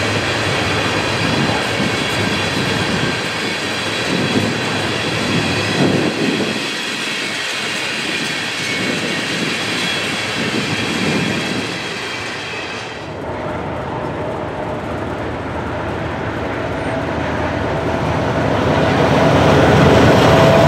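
Loaded tank cars of a freight train rolling past, steel wheels clicking over the rail joints with a high ringing squeal from the wheels on the rails. The sound cuts off abruptly about 13 s in. A lower diesel locomotive rumble then builds, growing louder over the last few seconds as the locomotive approaches.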